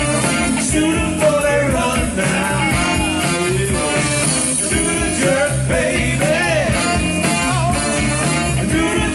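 Live soul band playing an up-tempo groove with drums and bass under a saxophone lead line that bends and slides in pitch.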